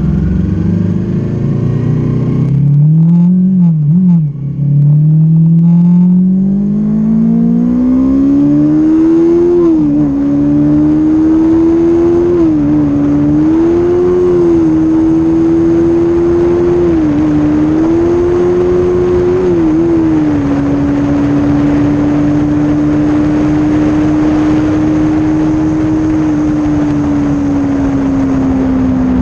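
Kawasaki Z400 parallel-twin with its stock exhaust, accelerating hard: the engine note climbs with several brief dips as gears change, then holds steady at high revs and eases off slightly near the end. Wind noise rushes on the microphone throughout.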